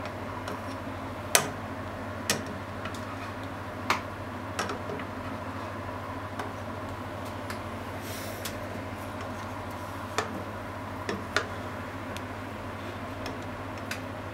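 Steady low hum with about seven sharp clicks and ticks at irregular intervals.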